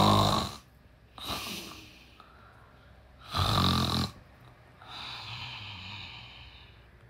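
A nine-year-old child imitating a parent's snoring: loud, rough snoring breaths at the start and about three and a half seconds in, a weaker one about a second in, and a long, quieter, faintly whistling exhale in the latter half.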